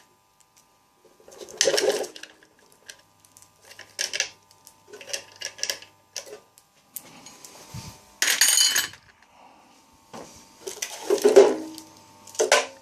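Small metal bolts and nuts clinking and clattering as they are handled and dropped into a dish, in several short separate bursts, with a longer rattle about eight seconds in.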